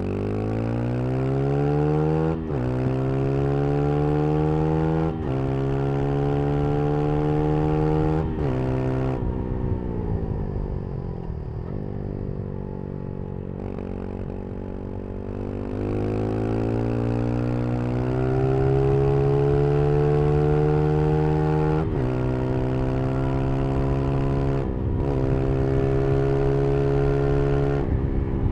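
Brixton Crossfire 125 XS single-cylinder engine under hard acceleration, revving up and shifting up three times in quick succession. The revs then fall away as the bike slows, and it pulls up through the gears again with more upshifts near the end.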